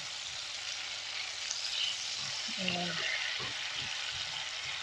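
Tofu strips frying in hot oil in a wok, a steady sizzle, while tongs turn the pieces to brown them evenly.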